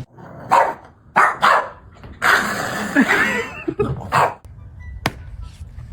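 A dog barking, several loud barks a second or so apart with a longer, noisier call in the middle, and a sharp click near the end.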